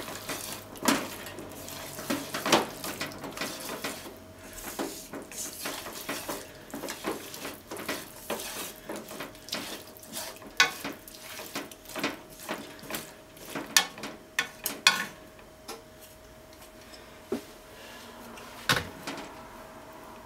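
Sliced pork and green onions stir-fried in a frying pan: wooden chopsticks clack and scrape against the pan in quick, irregular strokes over a sizzle. After about fifteen seconds the stirring stops, leaving only a couple of knocks.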